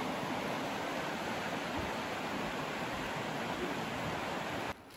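River water rushing steadily, cutting off abruptly near the end.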